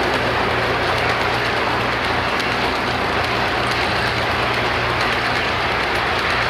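Lionel O-gauge tank cars rolling steadily along toy train track: a continuous rumble of metal wheels on the rails with faint scattered clicks, over a low steady hum.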